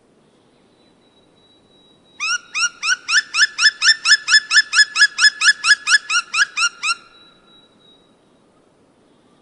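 An animal call: a fast, even series of about twenty short rising notes, roughly four a second, loud and lasting about five seconds.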